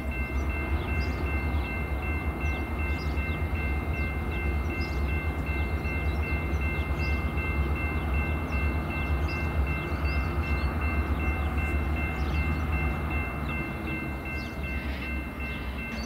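EMD diesel-electric locomotive engines running with a deep, steady rumble and a steady high-pitched whine above it, easing slightly near the end.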